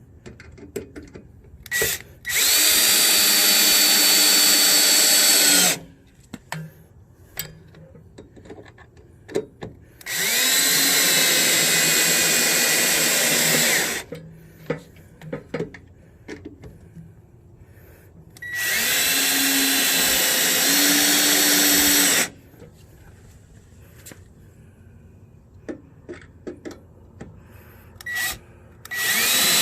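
Power drill running in three bursts of about four seconds each, with a fourth starting right at the end, its motor pitch shifting a little during each run, while fitting the RV step to the van. Small clicks and knocks come between the runs.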